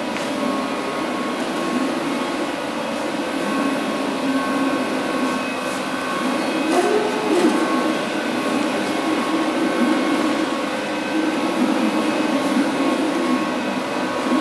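Cooling fans of 575-watt moving-head stage lights running with a steady whir and a few faint high tones, while the heads' pan and tilt motors whine in rising-and-falling glides as the fixtures move, once about a third of the way in and again repeatedly near the end.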